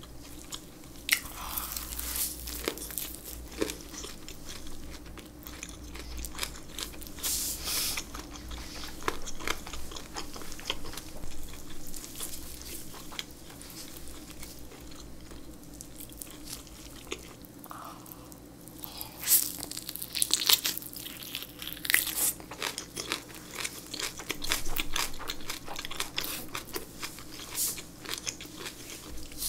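Eating sounds: biting into and chewing a lettuce wrap of raw oyster and kimchi, then kimchi with boiled pork, with many crisp crunches and crackles throughout.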